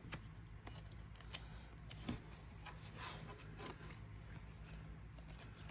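Faint clicks and crinkly rustles of a plastic photocard L holder being handled and turned over in the hands, over a steady low background hum.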